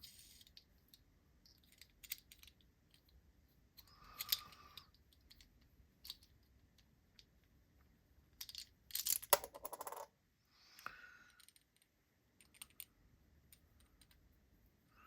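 Faint clicks and light metallic rattles of a metal fidget spinner and its bearing being handled, with a dense clattering rattle about nine seconds in.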